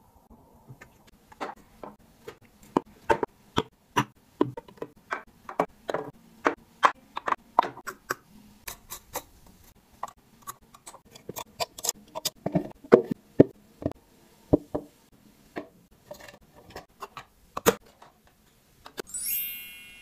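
Hands handling clear acrylic organizer strips and hanging plastic claw clips on a rod: a string of sharp plastic taps and clicks at an uneven pace. Shortly before the end, a brief bright shimmering chime.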